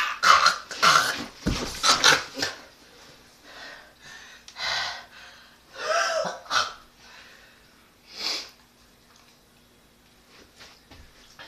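A person's wordless vocal sounds, grunts and hard breaths, in a quick run of loud bursts that thins to a few single bursts and stops after about eight seconds.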